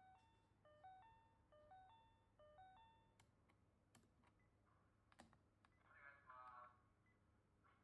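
Electronic beeper playing a short tune of stepped notes in repeating phrases, followed by a few sharp clicks and a brief cluster of tones about six seconds in. The sound is faint.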